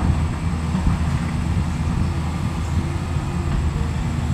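Diesel engine of a tracked excavator running steadily as it works, a low rumble.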